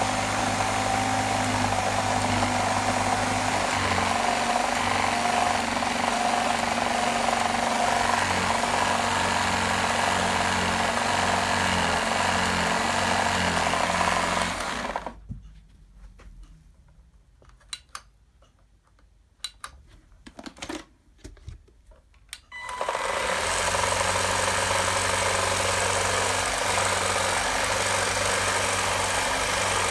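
Gtech AirRAM K9 cordless vacuum cleaner running steadily, then cutting out about halfway through; a few sharp clicks and knocks fall in the pause before it starts again and runs on. The owner traces the abnormal noise to something broken by the motor drive belt.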